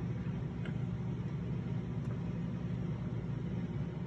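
A steady low hum, like a fan or appliance running, with a couple of faint ticks.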